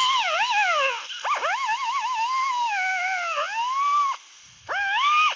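Pneumatic 90-degree cut-off wheel cutting through the AC accumulator line, a high whine that rises and falls in pitch as the wheel loads in the cut. It dips briefly just after a second and stops for about half a second around four seconds in.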